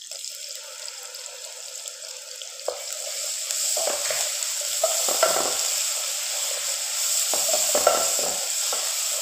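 Ginger-garlic paste and sliced onions sizzling in hot oil in a metal pot, stirred with a wooden spatula. The sizzle grows louder over the first three seconds, with repeated scrapes of the spatula against the pot.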